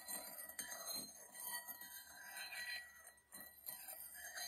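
Metal spoon stirring warm sugar water in a ceramic bowl, with faint irregular clinks and scrapes against the bowl.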